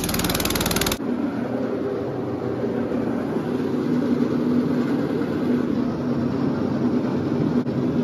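Engine running: a loud, rapid clatter that changes abruptly about a second in to steadier running with a held low hum.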